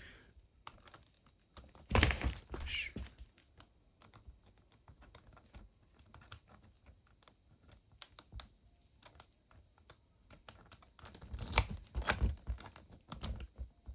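Kwikset doorknob and deadbolt being worked by hand: a run of small metal clicks and rattles as the key turns in the deadbolt and the knob is turned, with a louder clatter about two seconds in and a quick cluster of clicks near the end.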